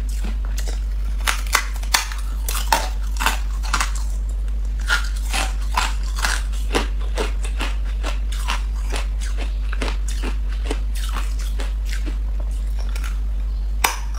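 Hard ice being bitten and crunched off a large block, a quick, uneven series of sharp cracks and crunches, over a steady low hum.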